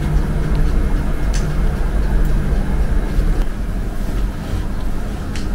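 Steady low mechanical hum and rumble, with a faint click about a second and a half in.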